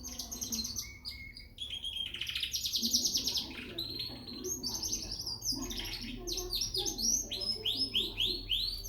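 Young frill canary singing a continuous song of fast trills and runs of quick downward-sweeping notes.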